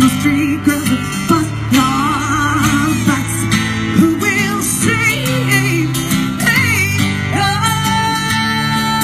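Live band music played outdoors through a PA: acoustic guitars strumming and picking under a woman's amplified voice, which sings wavering, ornamented runs without clear words. About seven and a half seconds in, a long note is held steady.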